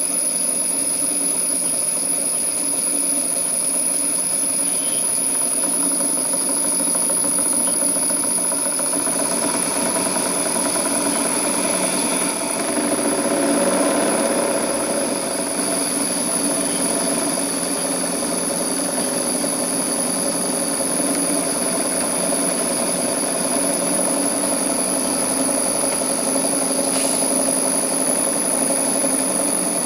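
Miniature vertical steam engine running steadily in live steam and belt-driving a small dynamo; an even mechanical running sound that swells slightly about halfway through.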